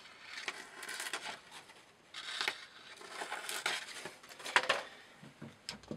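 Glock FM 78 knife blade slicing through a sheet of paper in a sharpness test, with paper rustling, about four strokes roughly a second apart.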